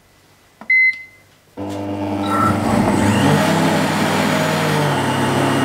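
Countertop blender beeps once as its fruit-and-vegetable program is selected. About a second and a half in, its motor starts and runs steadily, chopping spinach in water into juice. The motor's pitch steps up a little about three seconds in.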